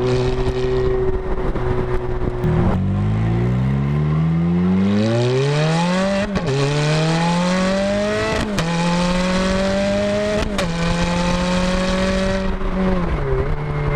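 Ferrari F430's V8 pulling hard through the gears. The engine note climbs, then drops sharply at each of three quick upshifts of the single-clutch automated manual gearbox, about two seconds apart. It then holds steady and eases off near the end.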